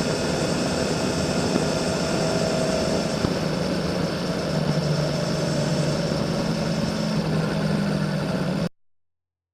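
Honda CBX 1000's inline six-cylinder engine running steadily through a 6-into-2 Kerker exhaust. The sound cuts off abruptly near the end.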